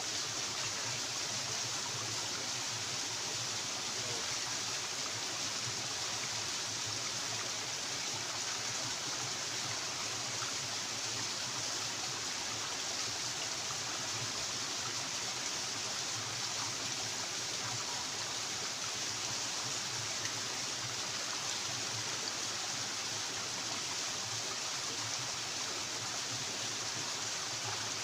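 Steady rushing of flowing stream water, even and unbroken.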